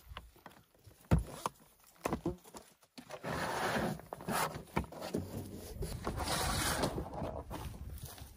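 Cam strap buckles clicking and the straps pulled loose, a few sharp clicks and knocks, followed by several seconds of scraping as a plastic storage tote slides and is lifted out.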